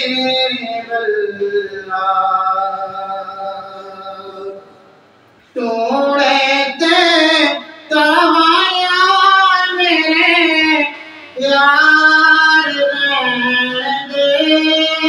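A man singing a naat, an Islamic devotional poem, solo and with no instruments, in long held notes that waver in pitch. He pauses for about a second five seconds in, then comes back in loudly, taking short breaths between phrases.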